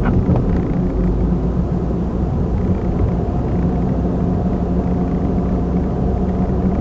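Steady road and engine noise inside a moving car's cabin in traffic, with a constant low drone.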